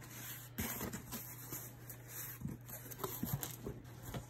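Cardboard box flaps being pulled open and folded back: faint rustling and scraping of cardboard, with a sharp click about half a second in and a few light knocks.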